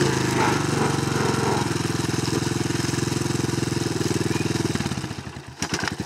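Dirt bike engine idling steadily while the bike lies on its side after a crash, then slowing to separate chugs as it dies about five seconds in.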